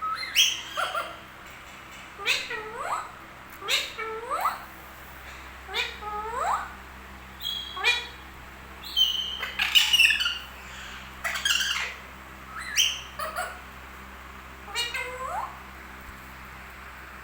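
Pet parrot making a long series of short squawking calls, often in pairs, about one to two seconds apart. Each call drops sharply in pitch and ends with a short upward hook.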